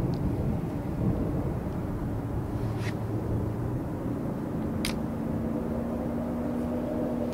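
Steady low outdoor rumble, with a faint hum coming in over the last few seconds and two brief high ticks, about three and five seconds in.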